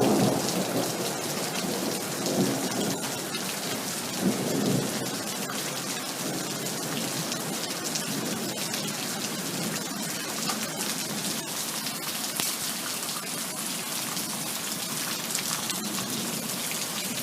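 Heavy rain falling steadily, with many sharp drop ticks. A thunder rumble fades away just after the start, and two fainter rumbles follow about two and four seconds in. After that only the rain goes on.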